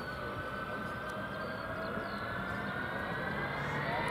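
Boeing C-17 Globemaster III's four Pratt & Whitney F117 turbofans spooling up for takeoff: a whine of several tones slowly rising in pitch over a low rumble, getting steadily louder.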